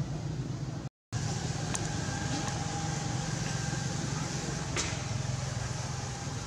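Steady background noise with a low engine-like hum, like a motor vehicle running nearby. The sound cuts out completely for a moment about a second in, then carries on, with two faint ticks.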